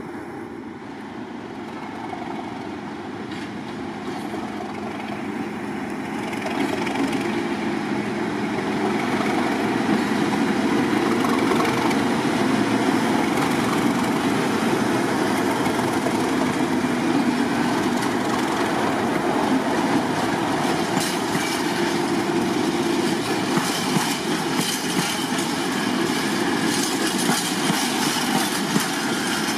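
A freight train hauled by two Class 37 diesel locomotives, with their English Electric V12 engines, approaches and passes close by, growing louder over the first ten seconds or so. It then runs steadily loud as the locomotives go by, and the empty timber wagons follow in the last third, their wheels clicking over the rail joints.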